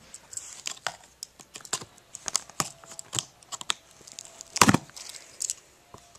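A pocket knife working at a cardboard box to cut it open: a run of irregular sharp clicks and taps, with one louder knock about four and a half seconds in.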